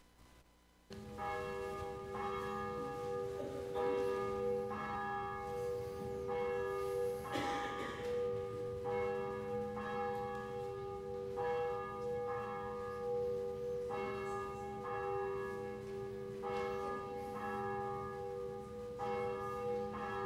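A single church bell tolling about once every 1.2 seconds, each stroke ringing on into the next. It starts about a second in. There is a brief rustle-like noise about seven seconds in.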